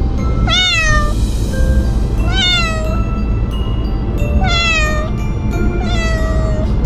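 A kitten meowing four times, each call rising then falling in pitch, over a steady low road rumble inside a moving car and background music. These are the anxious cries of a kitten shut in a pet carrier, not knowing where it is being taken.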